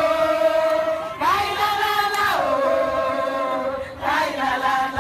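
A group of women chanting a song in long held notes. The pitch steps up about a second in and drops back down partway through.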